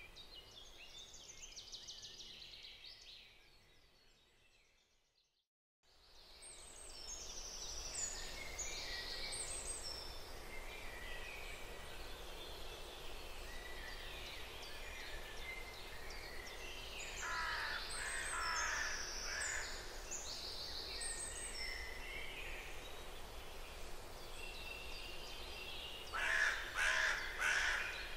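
Background ambience of many birds chirping and singing. It fades out about five seconds in and starts again a second later. A few louder bird calls come around the middle and near the end.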